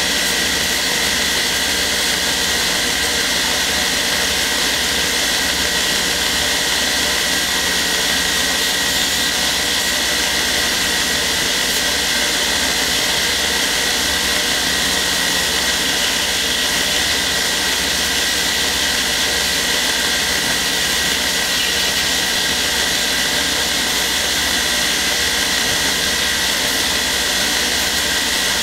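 Belt grinder running steadily, its abrasive belt over a 4-inch contact wheel grinding down a curly maple knife handle: a loud, even hiss with a high whine in it.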